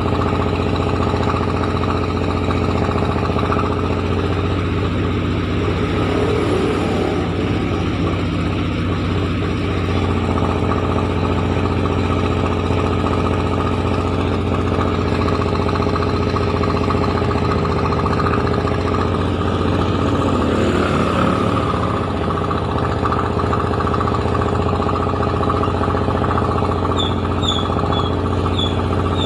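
Rice milling machine running steadily with a constant low mechanical hum. A few short high chirps come in near the end.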